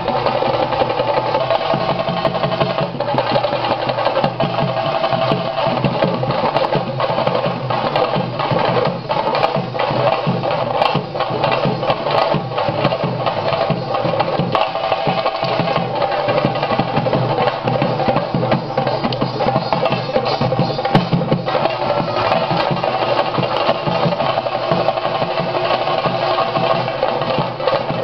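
Chenda drums playing Theyyam accompaniment: a dense, fast, unbroken stream of drum strokes at a steady level.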